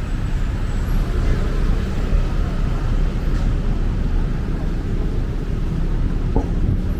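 Steady rumble of busy road traffic, with cars and engines passing and faint voices mixed in.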